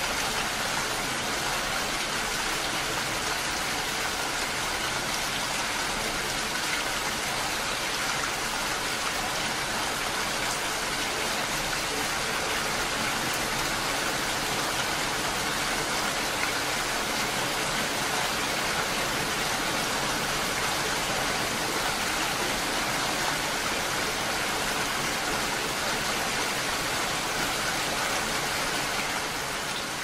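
Steady rain falling: an even hiss with no single drops or other sounds standing out.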